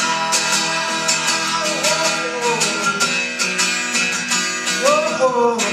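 Acoustic guitar strummed in a steady rhythm, with a man's voice holding and sliding between sung notes over it. Live acoustic performance of a pop song.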